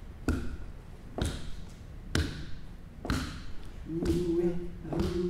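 A hand drum beaten in a slow, steady beat, about one stroke a second, each stroke ringing briefly. About four seconds in, voices join, singing a long held note over the drum.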